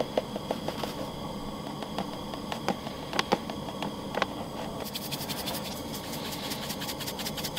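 Flour being poured from a bag into a plastic container, with a few light taps and rustles, then a seasoning shaker rattling rapidly as it is shaken over raw meat, about two-thirds of the way through. A steady low hum runs underneath.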